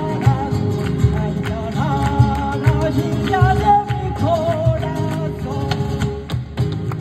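Live flamenco rumba: a singer's ornamented, wavering vocal line over flamenco guitars, with palmas hand-clapping and percussion keeping a steady driving beat.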